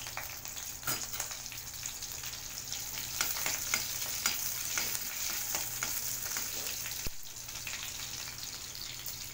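Curry leaves and mustard seeds sizzling and crackling in hot oil in a kadai, the tempering (tadka) stage, with a steady hiss and many irregular pops. A spoon stirs them in the pan.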